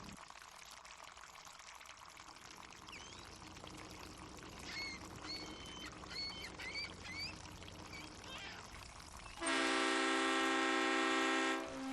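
Harbor ambience: a steady wash of water, with seagulls calling several times in the middle. Near the end a boat horn sounds one loud, steady blast of about two seconds.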